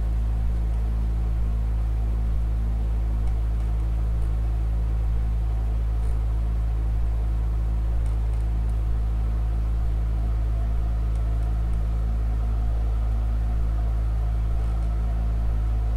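A steady low drone of several held low tones, unchanging throughout, with a few faint ticks now and then.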